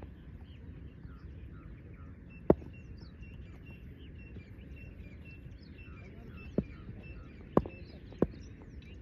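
Outdoor background noise with a small bird calling a short, high chirp over and over, about twice a second. A few sharp knocks cut through, the loudest about two and a half seconds in and three more near the end.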